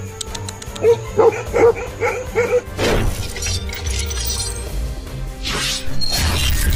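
A dog barks five times in quick succession, about two barks a second, over background music. Then come cinematic whoosh and shatter sound effects, with two sweeping rushes of noise.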